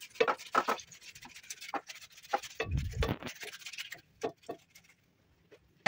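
Tomato being rubbed on a flat metal hand grater: a run of quick, uneven rasping strokes that stop about four seconds in. A low thump comes near the middle.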